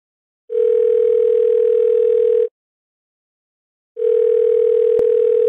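Telephone ringback tone on the line: two steady, two-second rings with a pause between, the signal a caller hears while the other phone is ringing. A short click about five seconds in, during the second ring.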